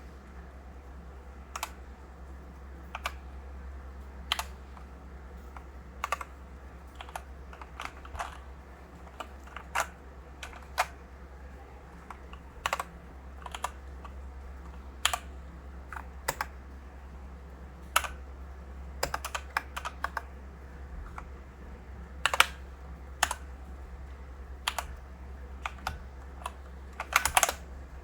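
iRocks K75M mechanical keyboard with Gateron switches and PBT keycaps being typed on: separate key presses at an uneven, unhurried pace, about one or two a second, with a few quick runs of keystrokes.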